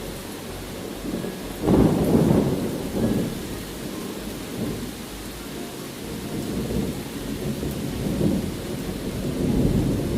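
Rolling thunder rumbling over steady rain, swelling loudest about two seconds in and again near the end.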